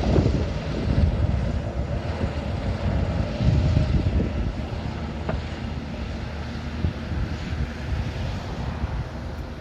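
Rescue helicopter's rotor and engine rumble with rotor wash buffeting the microphone, slowly growing fainter.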